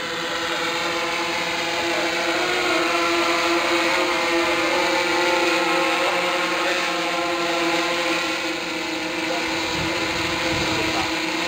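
Large electric octocopter hovering close by: the buzz of its eight propellers and motors makes a steady hum of several tones at once. It gets a little louder over the first couple of seconds.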